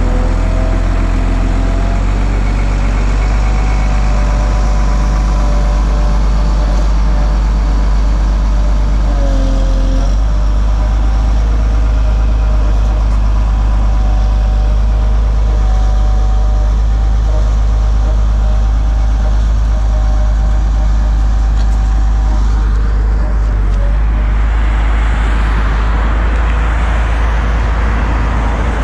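Volvo G710B motor grader's diesel engine running under load as it grades gravel and drives along, a deep steady rumble with a whining tone above it that shifts in pitch about ten seconds in. A broad rushing noise swells over the last few seconds.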